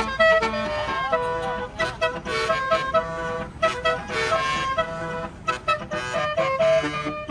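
A bus's Basuri musical air horn playing a quick melody, several notes a second with sharp starts, the telolet tune.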